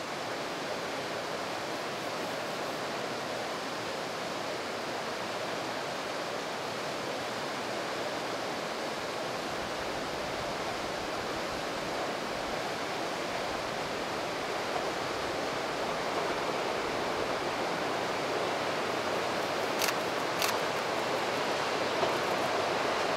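Steady rush of a rocky river's rapids. The approaching KiHa 183 diesel express grows slowly louder beneath it, with a few sharp clicks in the last few seconds.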